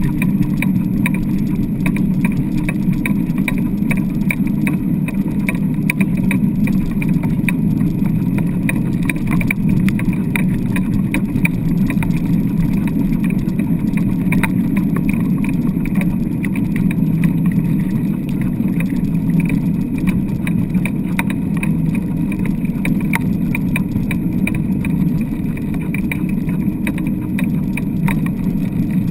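Steady rumble of a wheeled dryland mushing rig rolling over hard beach sand, picked up through a camera mounted on the rig's frame, with frequent light rattles and clicks from the rig.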